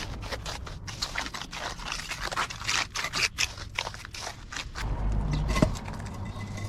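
Irregular series of short scraping strokes, with a low rumble joining in about five seconds in.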